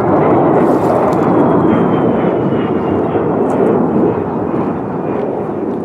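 Aermacchi MB-339 PAN jet trainer's Rolls-Royce Viper turbojet running at display power as the jet climbs overhead: a loud, deep rushing rumble that eases slightly toward the end, with a faint high whine slowly falling in pitch.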